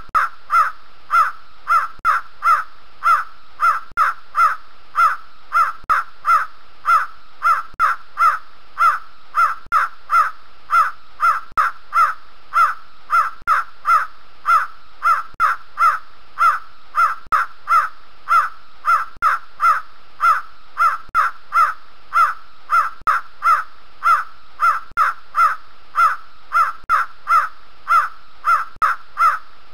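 Grey francolin (teetar) calling, a short harsh note repeated at a steady, unchanging pace of about three calls every two seconds.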